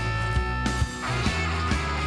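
Background music: a rock song with a steady beat.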